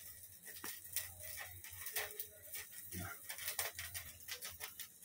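Wood fire in a homa fire pit crackling, with irregular small snaps and pops.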